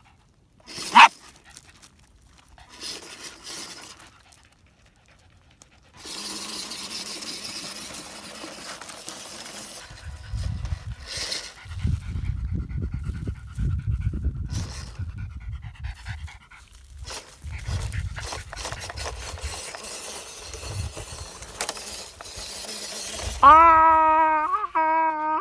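A small dog panting around a radio-controlled toy truck, with the truck's small electric motor whining steadily from a few seconds in. There is a sharp click about a second in. Near the end comes a loud, drawn-out pitched whine with a rising start.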